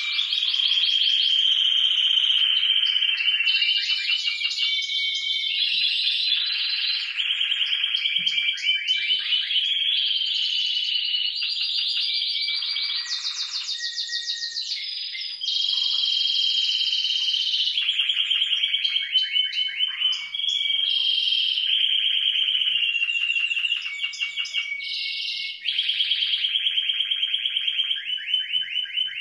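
Timbrado Español Original canary song: an unbroken run of fast trilled rolls and held high tones, switching to a new phrase every second or two.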